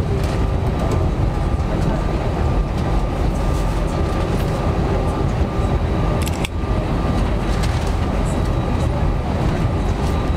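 Airbus A320 cabin noise during taxi on a single running engine: a steady low rumble with a faint steady whine, and light rattles from the cabin, including a clunk about six and a half seconds in.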